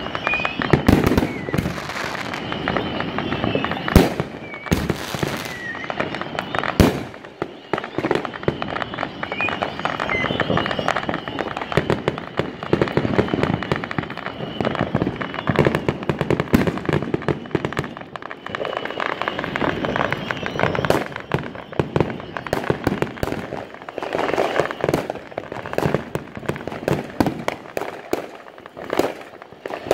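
Many fireworks going off at once, firecrackers and aerial shells, in a dense, unbroken crackle and popping of bangs. A few sharper loud bangs stand out in the first several seconds.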